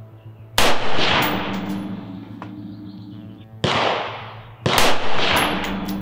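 Three rifle shots from an AR-15 in 5.56mm, about a second in, then about three and four and a half seconds in: zeroing shots at a target. Each crack is followed by a long echoing decay under the range's roof.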